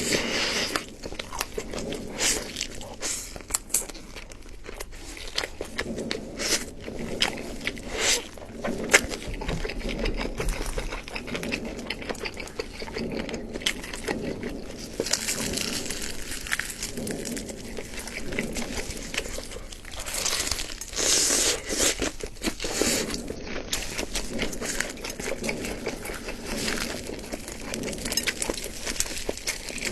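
Close-miked eating: chewing and crunching food with many small wet mouth clicks, and a few longer hissy stretches.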